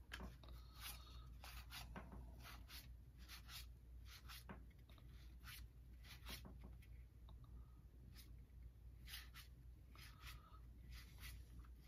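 Faint paper-on-paper swipes of baseball cards being slid one at a time off a freshly opened stack, about two soft swipes a second, over a low steady hum.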